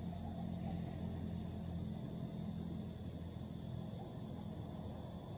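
A steady low mechanical hum with a faint rumble underneath, unchanging throughout.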